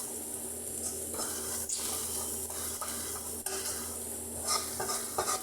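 Food sizzling steadily in a hot frying pan, with a few light knocks of a utensil against the pan.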